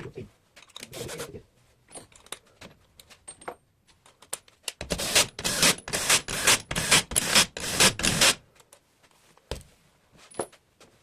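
Metal hand-tool work on an engine part: scattered clinks and taps, then a run of loud, rhythmic scraping strokes, about three a second, lasting some three and a half seconds before stopping.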